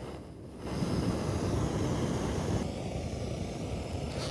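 Backpacking gas-canister stove burning under a pot, a steady rushing roar that grows louder about a second in as its valve is turned up.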